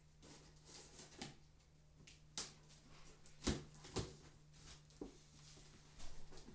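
Hands working at a cardboard box to open it: faint rustling broken by a handful of sharp snaps and clicks, the loudest a little past the middle.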